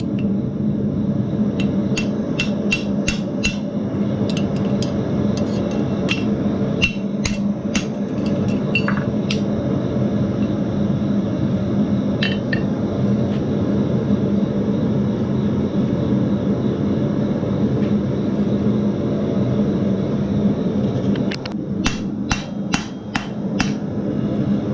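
A hand hammer strikes hot steel on an anvil in runs of quick, ringing blows while the hinge is forged. There are fewer blows in the middle stretch, all over a loud, steady background drone.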